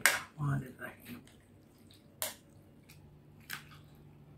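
A spoon mixing and scooping a creamy fruit-and-macaroni chaat in a bowl, with soft wet squishing and a few sharp clicks of the spoon against the bowl.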